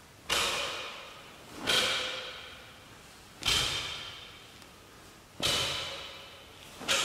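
A taekwondo practitioner's techniques in the Won Hyo pattern landing with five sharp cracks, one every one and a half to two seconds, each ringing on in the echo of a large hard-floored hall.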